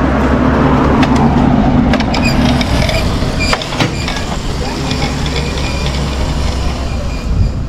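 Riding lawnmower's small engine running steadily while it is driven along, with rattling and clicking over the low hum.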